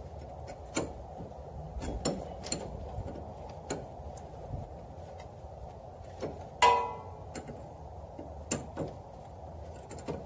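A 13 mm wrench clicking and clinking on the steering shaft's universal-joint bolt as the loose bolt is tightened: scattered light ticks at uneven intervals, with one louder, ringing metallic clink about two-thirds of the way through.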